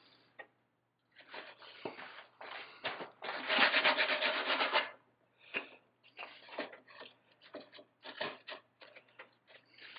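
Hand-working the end of a wooden kayak keel stringer: short scraping strokes of a small block plane, then a burst of rapid hand sanding with folded sandpaper from about three to five seconds in, the loudest part. Scattered light scrapes and rubs follow as the piece is test-fitted into the notch of the stem frame.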